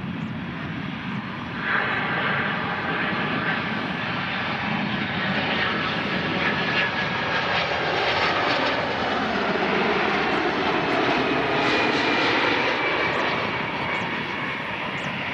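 Jet engines of a Boeing 767 on final approach, a steady loud jet noise that steps up about two seconds in. Later a high engine whine falls slowly in pitch as the airliner comes down to the runway.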